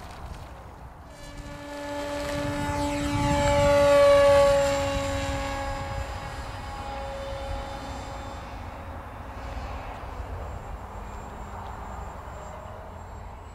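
H-King Skipper RC plane's electric motor and propeller whining as it lifts off the water and climbs away, growing to its loudest about four seconds in, then dropping slightly in pitch and fading.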